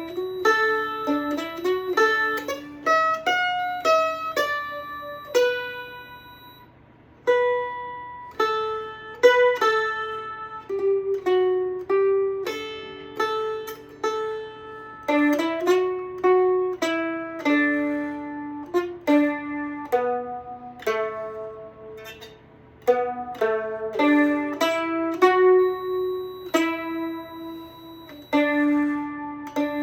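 Loar 310 mandolin played solo: a slow waltz melody picked note by note, the notes left to ring, with short breaks between phrases about six seconds in and again about twenty-one seconds in.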